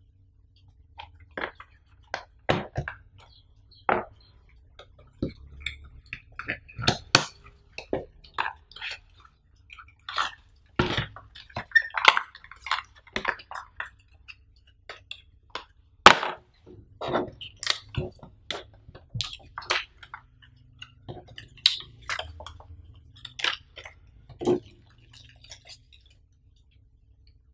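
A small cardboard product box and its wrapper being handled and opened by hand: irregular clicks, taps and rustles of card and thin plastic as a braided micro-USB cable and a paper leaflet are taken out.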